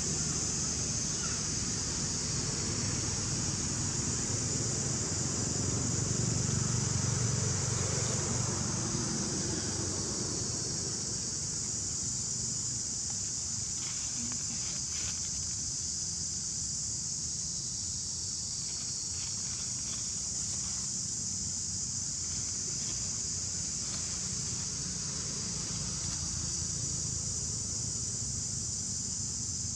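Steady, high-pitched insect chorus filling a forest, over a low rumble that fades after the first third, with a few faint clicks or rustles.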